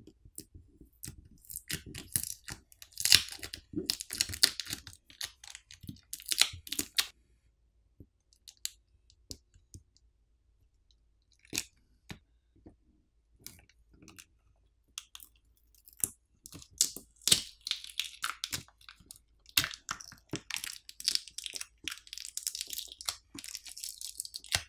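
Smartphone battery being pried up and peeled off its adhesive, with irregular crackling and tearing of the adhesive and plastic pull pouch and scattered sharp clicks. The crackling comes in two spells, one about two seconds in and a longer one from about sixteen seconds in, with only odd clicks between.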